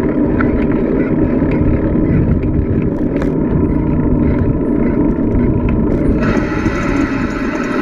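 Loud, steady wind rushing over the microphone and tyre noise from a bicycle coasting downhill; the noise turns hissier about six seconds in.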